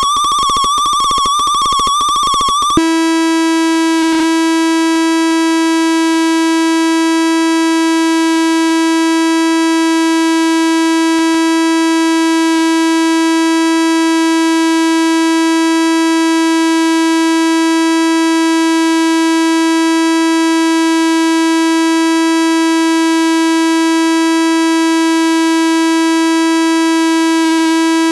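Electronic feedback noise. For the first few seconds there is a warbling, rapidly pulsing high tone, which cuts abruptly to a steady, buzzy drone full of overtones that holds unchanged.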